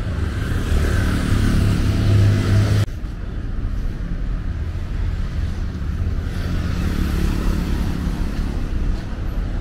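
Road traffic: a motor vehicle's engine runs loudly close by and cuts off suddenly about three seconds in. Steadier traffic noise follows, with another vehicle passing later.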